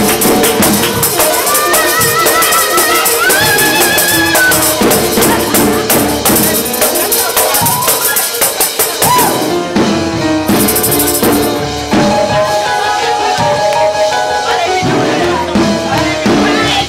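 Live worship band playing an upbeat number, with a tambourine shaking and voices singing along.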